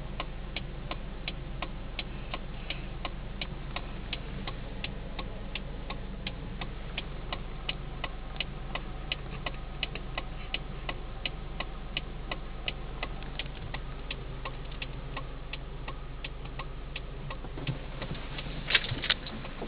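Car's turn-signal or hazard flasher ticking at an even pace, about two and a half clicks a second, over a steady low hum. Near the end there is a louder cluster of knocks.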